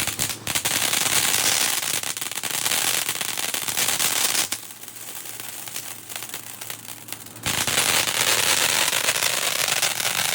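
Ground fountain fireworks spraying and crackling, with a dense run of fine pops over a hiss. It drops sharply for about three seconds in the middle, then comes back just as loud.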